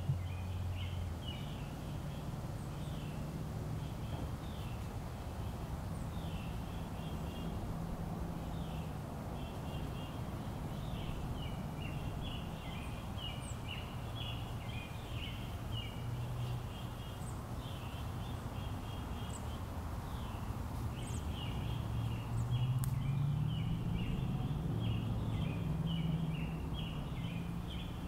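Outdoor ambience: many birds chattering and chirping continuously in quick runs of notes, over a low droning hum that swells for a few seconds near the end.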